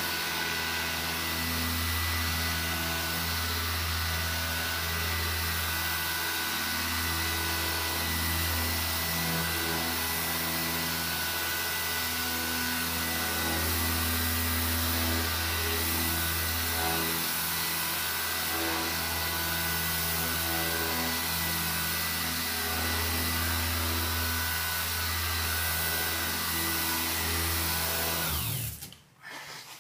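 Electric orbital sander running steadily while damp-sanding clear coat to flatten orange peel. It switches off and winds down near the end.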